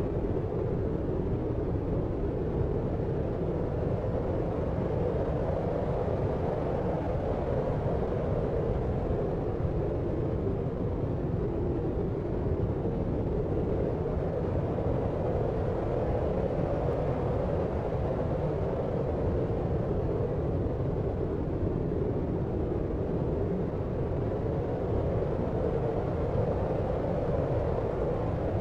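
Steady, unchanging deep noise, strongest in the low and low-middle range and muffled, with little hiss on top: sleep-aid brown-style noise.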